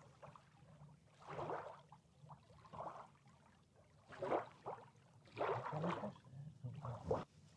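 Shallow seawater splashing and sloshing in about five irregular bursts, as stranded jellyfish are pushed back into the sea by hand.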